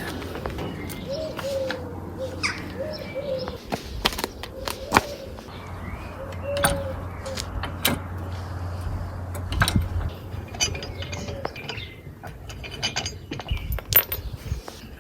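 Irregular sharp clicks and knocks of tools and metal parts being handled, over a low steady hum, with birds chirping in the background.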